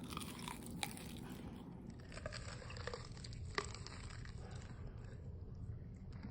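A person chewing crispy fried chicken up close, with a few short crunches.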